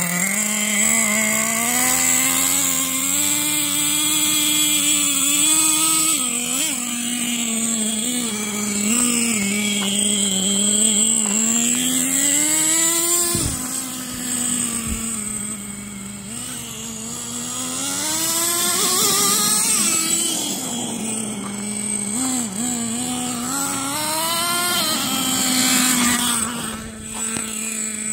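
Radio-controlled rock crawler truck's motor and drivetrain whining as it drives, the pitch rising and falling with the throttle.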